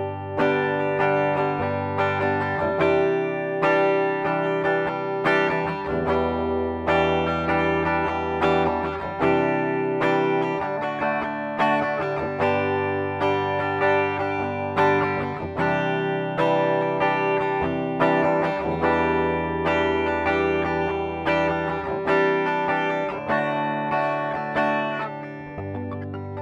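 Ibanez SZ520QM electric guitar played through its bridge humbucker with a clean tone: picked chords and arpeggios that ring on, a new attack about every second, tailing off near the end.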